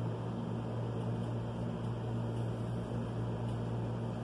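A steady low hum with a fainter higher tone over it, unchanging throughout, from a fan, appliance or electrical hum in the room. No distinct event stands out.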